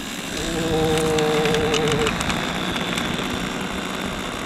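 Four-engine radio-controlled model B-17 landing on grass and rolling out: its propellers give a wavering hum for about a second and a half, over a steady rush of the model rolling across the grass, with a few sharp clicks between one and two seconds in.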